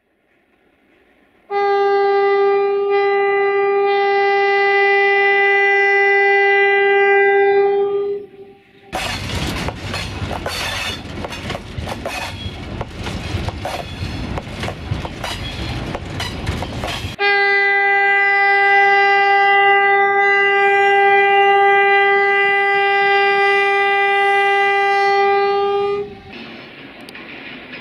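A diesel locomotive's horn sounds two long, steady single-tone blasts, each lasting about seven to nine seconds. Between them, for about eight seconds, a train passes close with rapid clickety-clack of wheels over rail joints.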